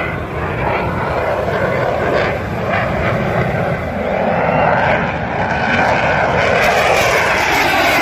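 Airplane engine noise as an aircraft flies past, steady and loud, growing a little louder in the second half.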